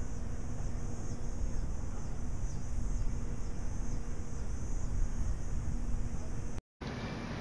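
Steady outdoor ambience: a low rumble with a high, shimmering hum of evening insects above it. It drops out suddenly for a moment near the end and comes back a little quieter.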